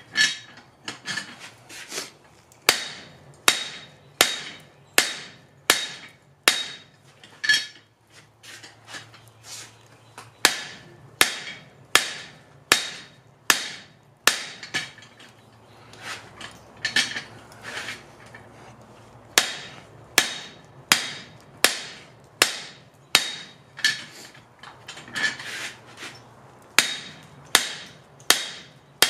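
Hand hammer striking the top die of a blacksmith's guillotine tool, which squeezes a glowing bar of Atlantic 33 flutagon steel held in tongs: steady blows about one to two a second, each ringing with a clear metallic tone, with a few lighter taps between. The bar is being forged out into a two-pound rounding hammer head.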